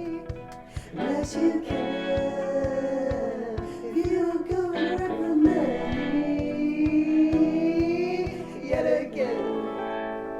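A song playing: a singer holds long notes, some of them gliding, over a steady low beat of about four pulses a second.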